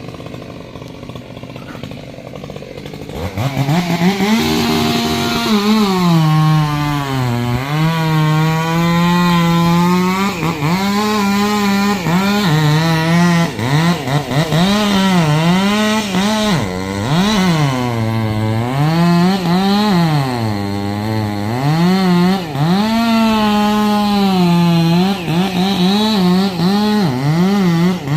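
Chainsaw engine running quietly at first, then revved up about three seconds in and cutting wood, its pitch dipping and recovering again and again as the cut loads the engine.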